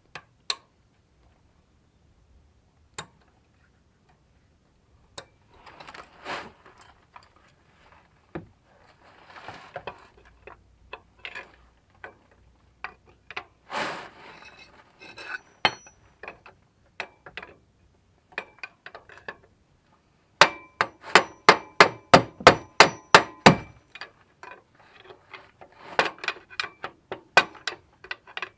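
Hammer blows on a steel bar set in the hub of a rusted A/C compressor clutch on a 1999–2005 Venture/Silhouette/Montana van, metal ringing with each strike. Scattered knocks and scraping first, then a quick run of about a dozen strikes, about four a second, a little past the middle, and a few more loud knocks near the end.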